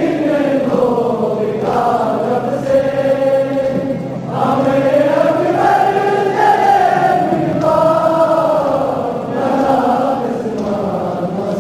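Men chanting a noha, a Muharram mourning lament, in long, slow melodic phrases that rise and fall.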